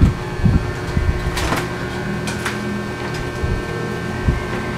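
Cables being handled around a metal amplifier case: scattered light clicks and knocks over a steady low hum.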